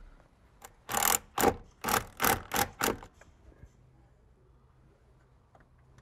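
A stapler driving staples through building paper into the framing around a wall opening: about six quick sharp strikes in two seconds.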